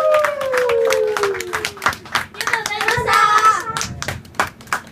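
Audience clapping irregularly in a small live club. Several voices hold one long call that slides down in pitch and ends about two seconds in. A short burst of voices calls out about three seconds in.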